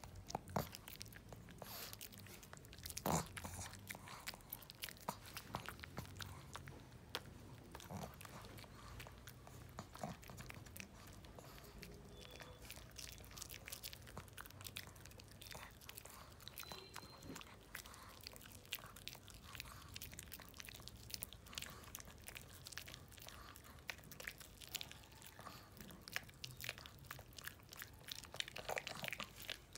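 A pug chewing a hard Milk-Bone dog biscuit: a long run of crisp crunches and clicks, with a louder crunch about three seconds in and a busier patch of crunching near the end.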